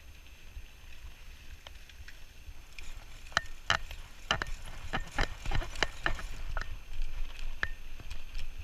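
Bicycle riding on a sandy dirt trail: steady wind rumble on the action camera's microphone, with an irregular run of sharp clicks and rattles from about three to seven seconds in.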